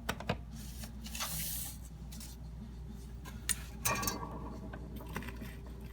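Scattered sharp clicks and handling noises, with a short hiss about a second in, over a steady low hum.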